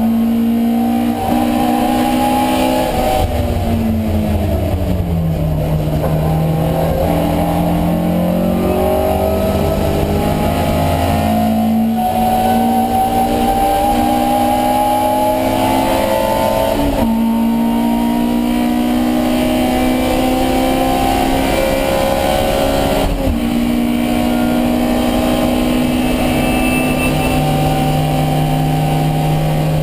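Alfa Romeo Giulia 1600's twin-cam four-cylinder race engine at full throttle, heard onboard. Near the start the revs fall away as the car slows, then the engine pitch climbs through the gears, dropping sharply at three upshifts.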